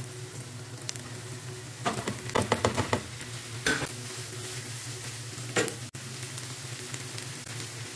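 Diced sausage, chicken and mixed vegetables sizzling in a nonstick frying pan over a steady low hum. A plastic spatula stirs and scrapes the pan in a quick cluster of strokes about two seconds in, then single strokes near four and five and a half seconds.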